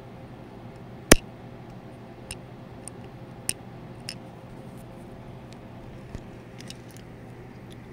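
Handling noise: a few sharp clicks and taps as a die-cast toy car is held and moved close to the camera, the loudest click about a second in, over a steady low hum.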